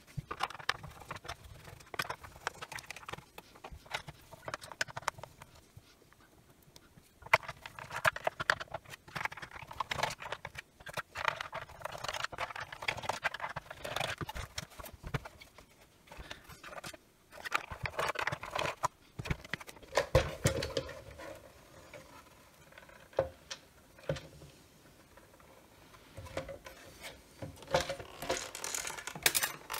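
Red plastic casing of a Milwaukee M12 radio being handled and pried apart: repeated plastic clicks, knocks and scrapes in bursts, with short pauses between them.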